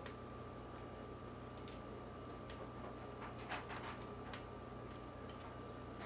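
Faint scattered clicks and ticks of an Indian ringneck parakeet's beak pecking pomegranate on a ceramic plate. There is a short flurry a little past halfway and one sharper click just after it, over a faint steady hum.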